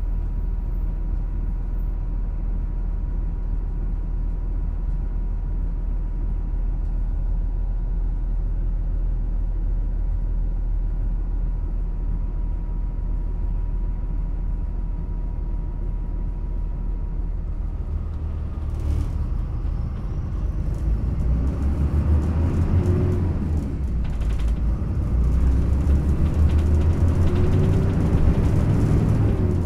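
Yutong ZK6128HG low-floor city bus heard from inside. Its diesel engine idles with a steady low hum, then about eighteen seconds in the bus pulls away. The engine note rises as it accelerates, and the body rattles over the uneven road.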